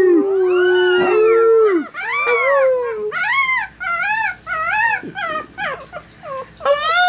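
Three-week-old Chihuahua puppies howling in high, wavering cries that rise and fall, several overlapping, with a run of about five short arched howls near the middle. Underneath, at the start, is a lower, steady human howl that the puppies are howling along to.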